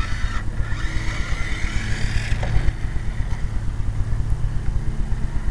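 The electric motor and gears of a BoLink BoKart RC pan car whining as it drives, the pitch wavering with speed and fading after about two seconds as the car moves away, over a low, pulsing rumble.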